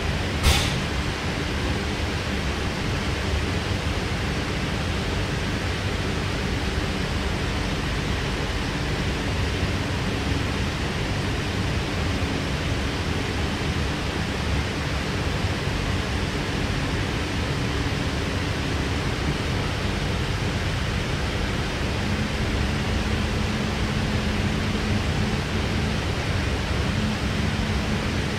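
Cabin running noise of a Sydney Trains K-set double-deck electric train on the move: a steady rumble of wheels on track, with one sharp click about half a second in and a faint low hum coming in about two-thirds of the way through.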